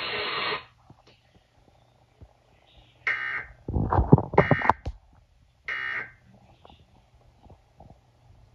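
Emergency Alert System end-of-message signal: three short bursts of digital data tones, a little over a second apart, closing the test broadcast. A louder, lower-pitched sound overlaps the second burst.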